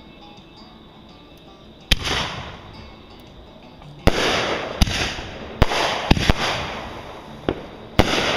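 Aerial fireworks bursting: one sharp bang about two seconds in, then a run of about six more bangs, irregularly spaced, from about four seconds on, each trailing off over a second or so.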